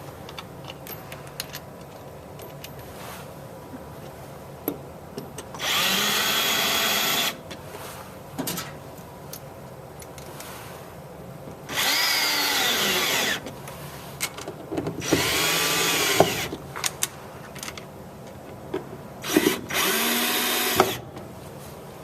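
Cordless drill driving mounting screws into wall anchors, in four separate bursts of a second or so each. Its motor whine rises and falls in pitch as the trigger is squeezed and let go, with light clicks in between.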